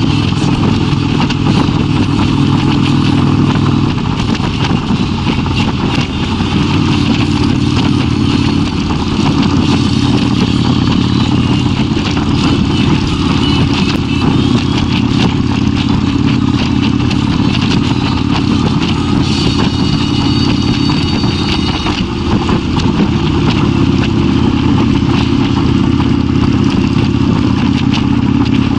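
Kawasaki Vulcan 1600's V-twin engine running steadily while the motorcycle cruises, over a constant rush of wind and road noise. The engine note changes about four seconds in and again around two-thirds of the way through.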